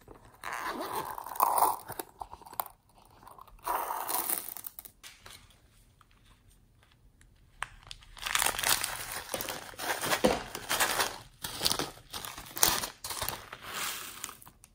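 Thin plastic bag crinkling and rustling in irregular bursts as it is handled and squeezed, loudest and busiest in the second half. A shorter burst of plastic handling comes near the start and another around four seconds in.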